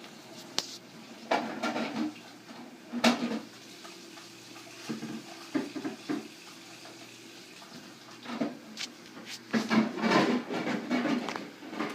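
English bulldog puppy snoring in her sleep: uneven noisy snores and snorts every two to three seconds.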